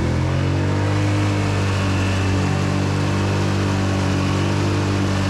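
ATV engine running steadily at an even, low pitch.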